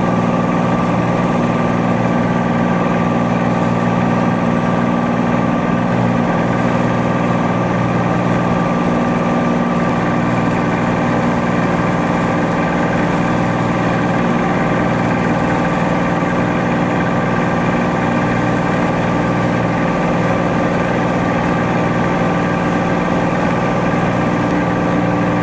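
Cessna 182T's six-cylinder Lycoming IO-540 engine and propeller running steadily at climb power, a constant drone heard inside the cabin.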